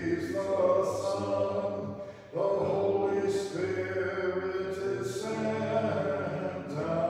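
Unaccompanied Orthodox liturgical chant at Vespers: sung phrases on sustained, steady notes, with a short breath between phrases a little over two seconds in.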